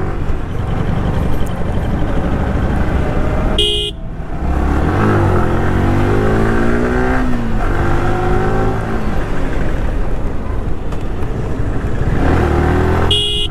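Sport motorcycle engine running under way with steady wind and road noise, its pitch rising and falling as it accelerates and shifts gear. Two short high beeps cut through, about four seconds in and again near the end.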